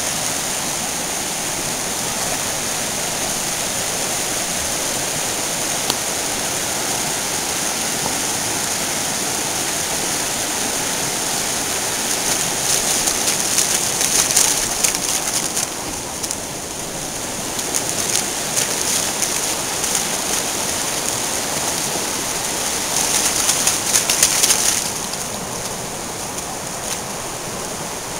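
Shallow rocky stream rushing steadily over stones. Louder crackly noise comes in twice, once around the middle and again near the end, for a couple of seconds each time.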